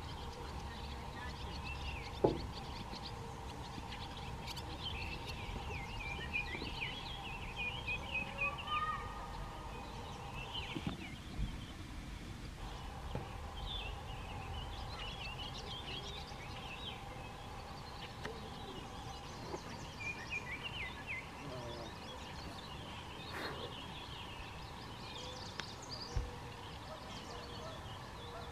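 Canada geese calling with low gabbling, amid many short high bird chirps throughout. A sharp tap sounds about two seconds in and another near the end.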